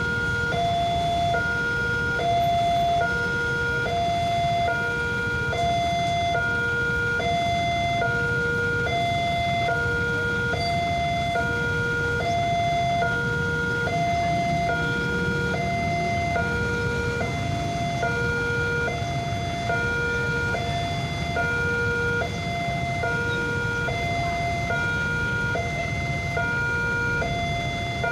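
Railway level crossing warning alarm sounding a steady two-tone signal, a high and a low tone alternating evenly about once every 1.4 seconds, warning of an approaching train. Underneath are the low engines of motorcycles and a truck idling in the queue.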